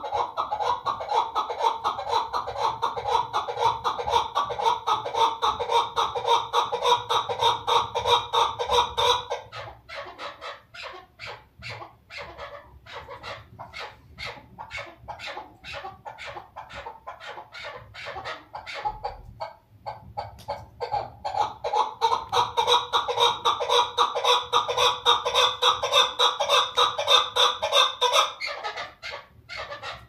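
Female chukar partridge calling: a long, fast run of repeated clucking notes for about nine seconds, then a spell of quieter scattered notes, then a second long, fast run from about twenty seconds in that stops near the end.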